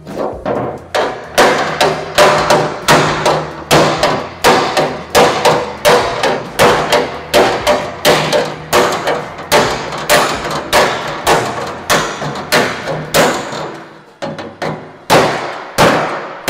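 Steel body hammer striking the sheet-steel flange of a 1940 Willys hood, loud blows about two to three a second with the panel ringing briefly after each, hammering the wrinkles out of the bent flange. The blows pause briefly near the end, then a few more follow.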